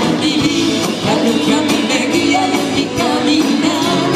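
Loud live pop band music through a concert PA, with a steady drum beat and guitars, and singing that comes and goes.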